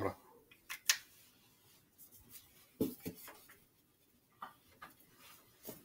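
Whiteboard being wiped clean with an eraser: a few short, faint rubbing strokes against the board.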